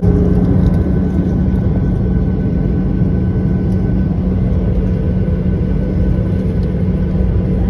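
Cabin noise inside a Boeing 737-800: its CFM56 jet engines running, a steady loud rumble with a constant low hum.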